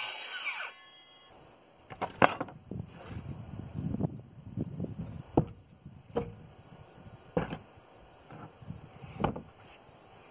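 A power saw winding down just after a cut, its whine fading within the first second. Then scattered sharp wooden knocks and shuffling, about five clear knocks, as cut lumber pieces are handled and set down.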